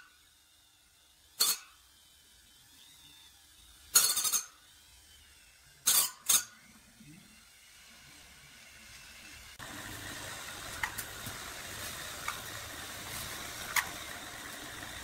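Sharp metallic clinks of valve parts knocked against an aluminium engine cylinder head during reassembly: one clink, then a longer clatter a few seconds later, then two quick clinks. Past the middle a steady hiss-like noise with a few faint ticks starts abruptly and runs on.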